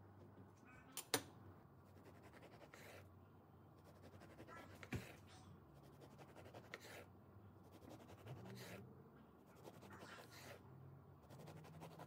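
Kitchen knife slicing a loaf of banana bread on a wooden cutting board: faint strokes about every two seconds as the blade cuts through the crust and meets the board, with a sharper knock about a second in and another midway, over a low steady hum.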